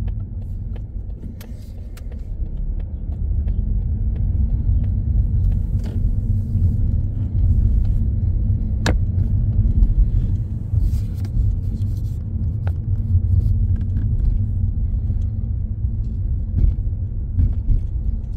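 Low, steady rumble of a car driving slowly, heard from inside the cabin, with scattered small clicks and rattles and one sharper click about nine seconds in.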